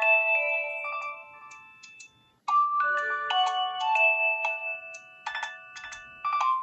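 Nokia 3300b mobile phone playing a ringtone: a bright electronic melody with several notes sounding together. It breaks off briefly about two seconds in, and new phrases start right after and again near the end.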